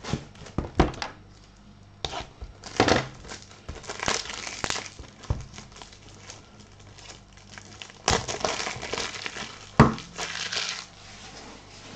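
Plastic trading-card pack wrappers crinkling as packs are handled and torn open, in several bursts with a few sharp clicks.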